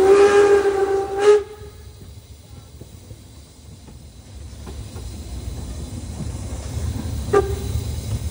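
Steam locomotive whistle: one blast of about a second that cuts off sharply, then a short toot near the end, over the train's running noise.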